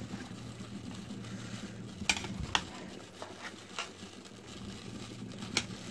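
Metal spoon stirring thick egusi soup in a stainless-steel pot, with a few light clicks of the spoon against the pot over a steady low hum.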